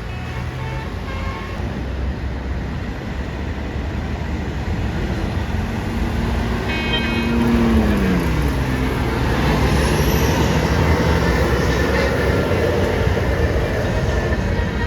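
Road traffic, with heavy vehicles driving past. An engine drone falls in pitch as one passes about eight seconds in, and the traffic noise grows louder in the second half. A few steady horn notes end in the first second or so.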